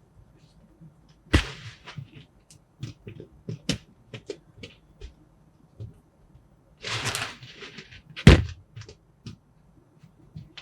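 Kinetic sand being cut: scattered sharp taps and clicks, a short crunchy stretch about seven seconds in, and a heavier thump just after it.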